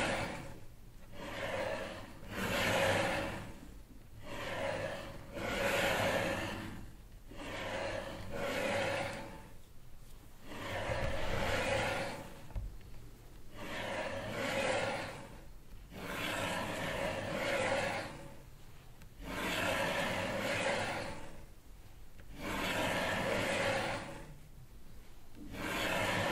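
Slow, regular breathing, heard as swells of rushing noise about every two to three seconds.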